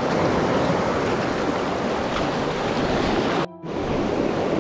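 Mountain river water rushing steadily over a riffle, cutting out for an instant about three and a half seconds in.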